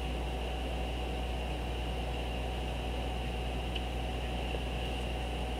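Steady low electrical hum with a faint high thin tone and light hiss, unchanging throughout: the background noise of the room and recording setup.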